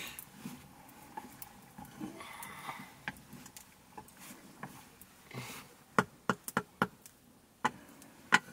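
Wooden stirring stick knocking against a soot-blackened cooking pot on a wood fire: a quick run of sharp knocks about six seconds in and one more near the end, over quiet stirring.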